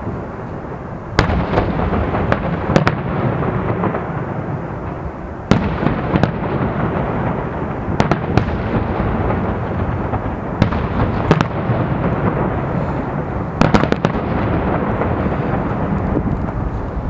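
Festive fireworks salute: sharp bangs of shells bursting every second or two, some in quick pairs, over a continuous low rumble and crackle.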